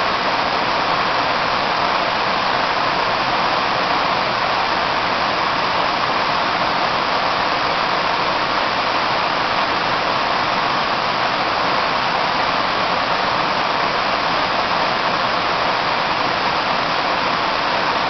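Waterfall water running in a sheet down a steep, smooth rock slab: a steady, even rushing.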